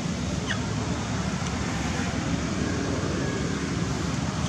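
Steady low rumble of outdoor background noise, with a faint short high chirp about half a second in.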